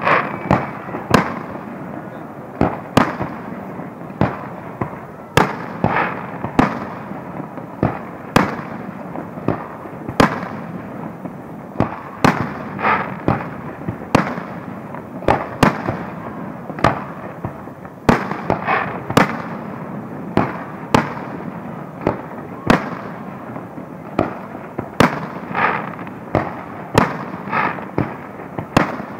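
Aerial firework shells bursting in a display: an uneven, continuous series of sharp bangs, often one or two a second.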